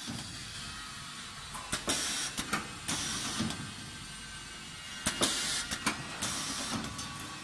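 Compressed air hissing in several short bursts from the bowls of AirTAC pneumatic filter-regulator units as a hand works them, with clicks and knocks in between.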